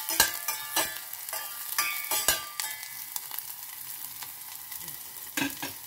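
Onion and garlic sizzling in oil in a small stainless steel saucepan, with a metal spoon scraping and clinking against the pan as it stirs, the pan ringing briefly at each stroke. The stirring stops after about two and a half seconds, leaving the sizzle, with one more knock near the end.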